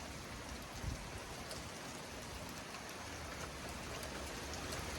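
Heavy thunderstorm rain falling steadily, a wide even hiss that grows slightly louder toward the end, with one brief low thump about a second in.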